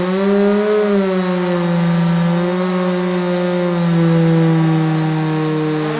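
Moog Etherwave Plus theremin holding a low, buzzing drone tone rich in overtones. The pitch swells up slightly about half a second in, then settles and drifts slowly downward.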